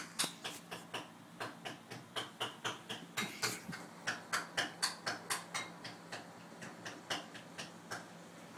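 Quick, irregular light clicks and scratches, about three or four a second, as a hand and a kitten's paws play on a carpet; they thin out near the end.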